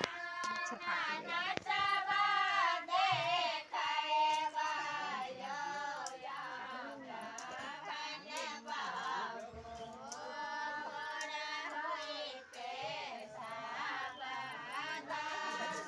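Women singing together in high voices, a song that carries on throughout.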